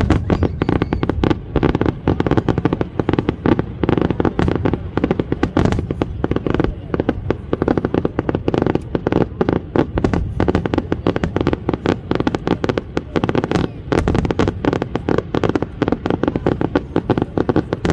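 Aerial fireworks display, shells bursting and crackling in a dense run of bangs, several a second, without a break.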